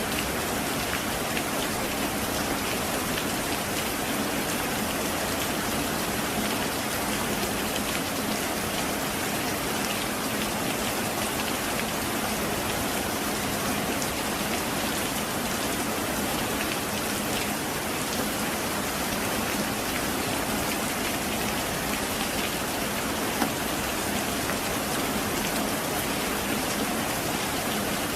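Heavy rain falling steadily, an even hiss of countless drops, with a couple of louder single drop hits in the second half.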